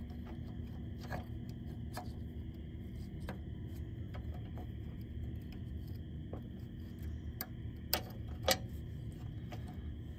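Faint clicks and light metal clinks as a steel coil spring and chain idler arm are handled and fitted onto a bushing by hand, with two sharper clicks about eight seconds in. A steady low background hum runs underneath.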